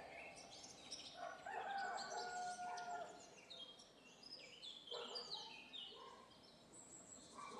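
Farmyard sound effect: a rooster crowing once in a long call, followed by birds chirping in many short falling notes.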